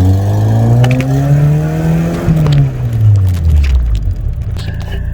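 VW Golf MK2's carburetted engine pulling under acceleration through the new muffler. Its revs climb steadily for about two seconds, then drop away. The owner says the carburettor is giving trouble and the engine is burning too much fuel.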